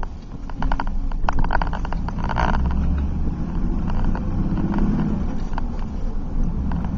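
2005 Chevy Silverado 4x4 pickup driving, heard from inside the cab, with a steady rumble of road and engine. About half a second in comes a quick run of clicking and grinding from the front end, lasting about two seconds. The owner suspects a sticking front-differential actuator or a bad hub bearing.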